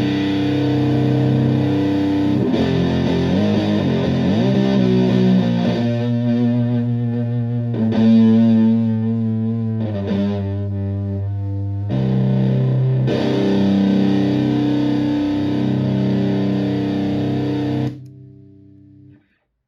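Electric guitar played through a modified Violet Ram's Head Big Muff fuzz pedal, with its tone and scoop controls in use: thick, distorted sustained chords with some bent notes. The tone colour changes for several seconds in the middle. The last chord is stopped at about 18 seconds and dies away.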